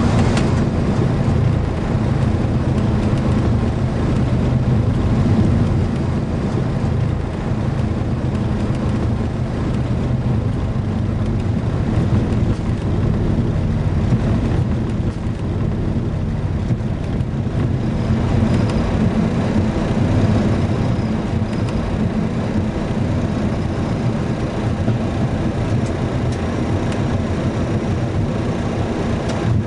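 Steady rumble inside a Boeing 737 cockpit as the airliner rolls out along the runway after landing, engine and wheel noise together, easing slightly midway.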